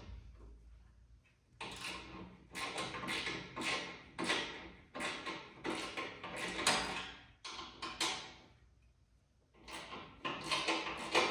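Tape being pulled off a roll in a series of short, sudden rips and crackles, with two pauses, as it is laid on the inside of a motorcycle fender as a guard.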